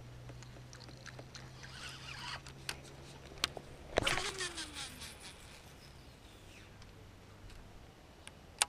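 Handling noise from a baitcasting rod and reel as a topwater lure is worked back: faint clicks and rustles, with a sharp knock about four seconds in. A low steady hum runs through the first half and fades.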